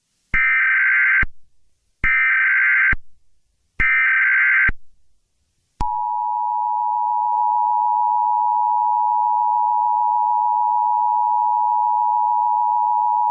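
Emergency Alert System broadcast signal: three short bursts of warbling SAME header data tones about a second and a half apart, then the steady two-tone EAS attention signal, which begins about six seconds in and announces an alert.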